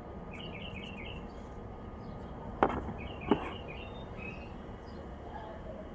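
Two sharp clicks about two-thirds of a second apart near the middle, over a steady low background hum, with a small bird chirping in quick runs of short high notes.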